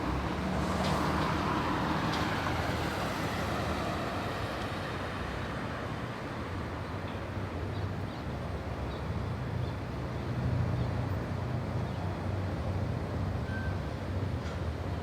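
Residential street ambience: a steady rumble of traffic, swelling as a vehicle passes about a second in and again about ten seconds in.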